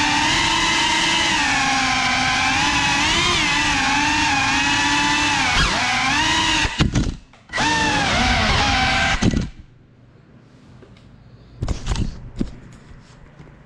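Motors and propellers of a GEPRC Cinelog 35 ducted 3.5-inch FPV cinewhoop whining in flight, the pitch rising and falling with throttle. They drop out briefly about seven seconds in, pick up again, then stop suddenly about nine and a half seconds in as the drone comes down. A few knocks follow near the end.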